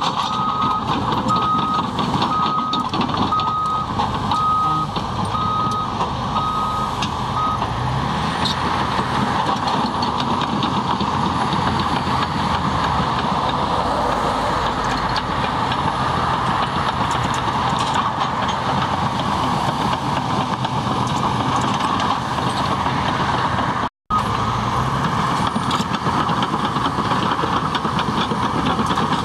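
Cat D6T bulldozer's diesel engine working steadily, its reversing alarm beeping at an even rate for the first several seconds while it backs up. The sound cuts out for an instant near the end.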